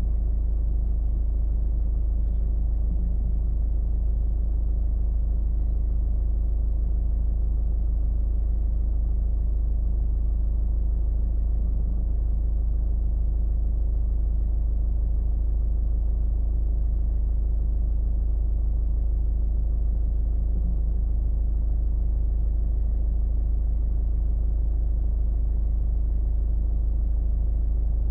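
Steady low rumble of a car driving, road and engine noise without change.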